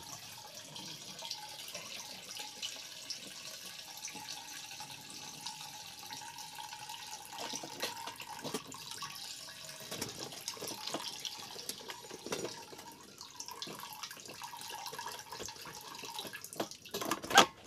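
Gasoline pouring in a thin stream from a lifted-out fuel pump assembly back into the fuel tank through the pump opening: a steady trickle and splash. A single sharp knock comes near the end.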